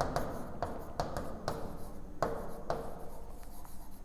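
Chalk writing on a blackboard: quick, irregular scratches and taps as words are written out.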